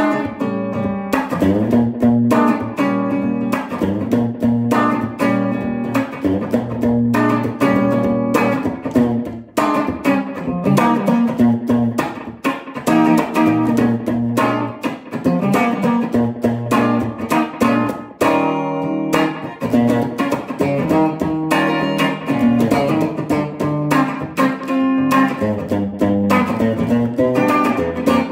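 Electric guitar playing rhythm chords through the tune's changes in short, choppy strokes, being recorded into a loop station.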